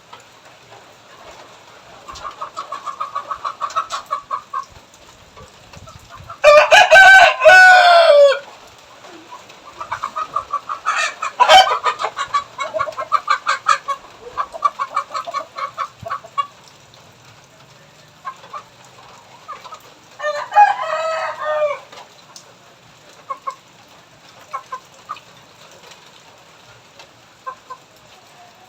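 A rooster crows twice, loud and long, each crow falling in pitch at the end, with runs of fast chicken clucking between the crows.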